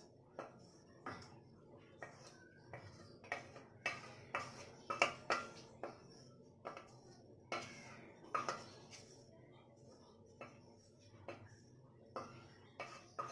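A spatula scraping and knocking against a stainless steel pan in a string of short, irregular strokes, clearing thick poppy-seed gravy and pointed gourds into a steel bowl.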